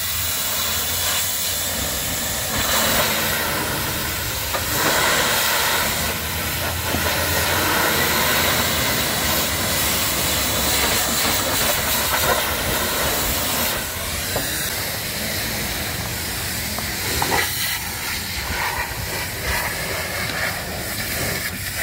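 Pressure washer's high-pressure water jet hissing steadily as it sprays the back of a truck cab and chassis.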